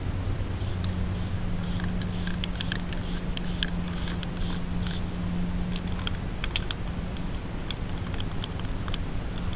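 Aerosol spray-paint can spraying cream paint onto a wire mesh face mask, a hiss in short spurts. Scattered sharp clicks and a steady low hum run underneath.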